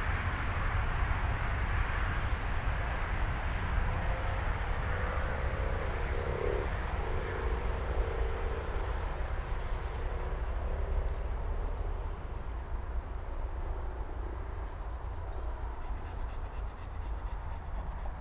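Wind rumbling on the microphone over a steady outdoor hiss, with a faint hum from about four to nine seconds in.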